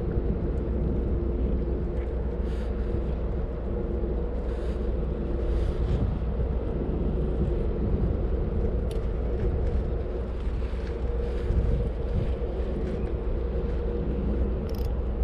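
A boat engine running steadily, a low rumble with a steady hum.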